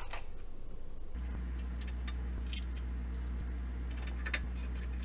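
Ratcheting socket wrench clicking in short runs as it drives a bolt into a treadmill upright's base, with light metal clinks of tool and hardware. A steady low hum sits underneath from about a second in.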